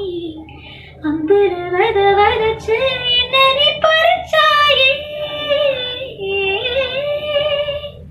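A high-pitched singing voice carrying a melody, with sliding pitches and long held notes in the second half.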